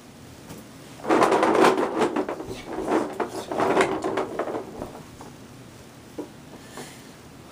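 A burst of rattling and clattering lasting about four seconds, starting about a second in, followed by a few faint knocks.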